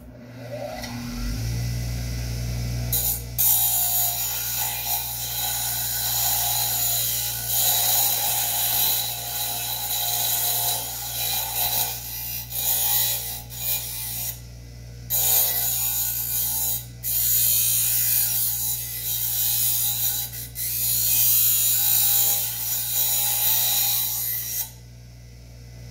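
Electric grinder motor spinning up, then grinding a steel hacksaw blade down to narrow it, a steady hiss broken by a few short pauses as the work is lifted off the wheel. Near the end the grinding stops while the motor keeps running.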